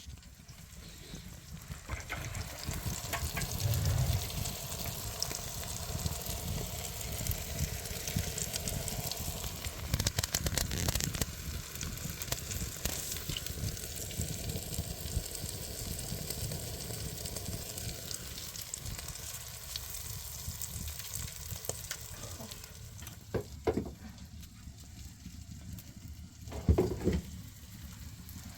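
Food frying in a pan: a steady sizzle with crackling throughout. Two short knocks sound near the end.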